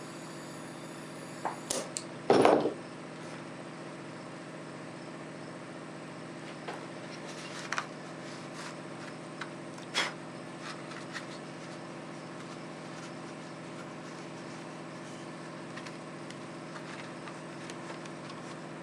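Steady machine hum with a few short bursts and clicks; the loudest is a brief burst about two and a half seconds in.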